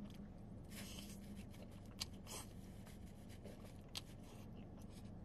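Plastic fork and knife scraping and clicking against a styrofoam container while cutting a saucy wet burrito: faint scrapes with a few sharp clicks, over a faint steady low hum.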